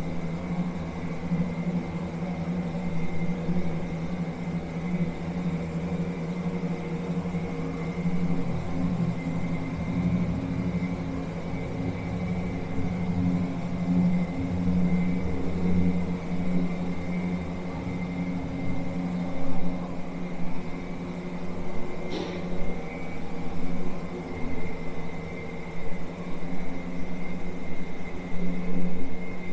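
Steady low mechanical hum made of several constant tones, with a single sharp click about three quarters of the way through.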